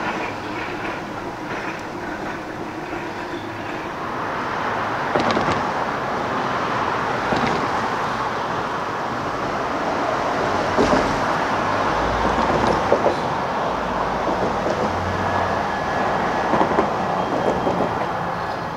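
Antique Brill single-truck electric trolley running on street track: a steady rumble of wheels on rail that grows louder about four seconds in, with several sharp clicks. A large road vehicle passes close by near the middle and adds a low rumble.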